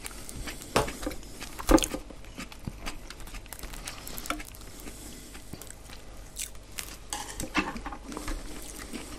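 Crisp-crusted pide being broken by hand and eaten: scattered crunches and small clicks, with two sharper cracks in the first two seconds.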